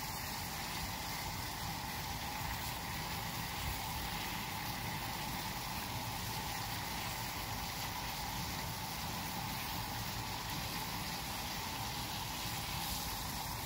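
Water at a steady rolling boil in a small steel saucepan on a gas stove, with whole spices in it.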